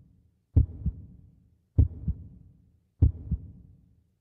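Heartbeat sound effect: a low double thump, lub-dub, repeating about every one and a quarter seconds, three times.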